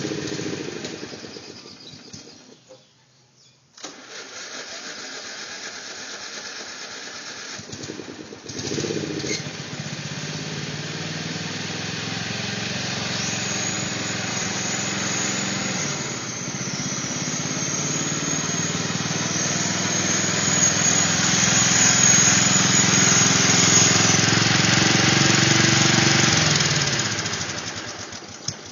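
Old Briggs & Stratton four-stroke riding-mower engine, converted to run on propane: it runs, dies out a couple of seconds in, is started again and catches about eight seconds in. It then runs steadily, growing louder as the mower drives up close, and cuts off near the end.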